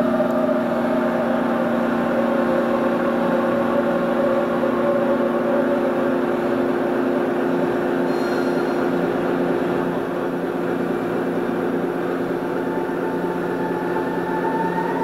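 Ambient electronic drone from modular synthesizers and theremin: several held tones layered into a steady hum. One tone slides slowly down in pitch over the first half, and a higher one glides upward near the end.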